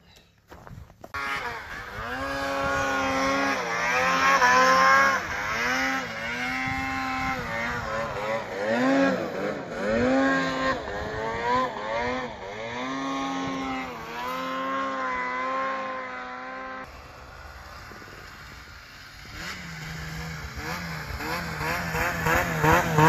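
Snowmobile engine revving up and down as it is ridden through deep powder, its pitch rising and falling every second or so. It drops to a lower, quieter run for a couple of seconds near the end, then climbs again.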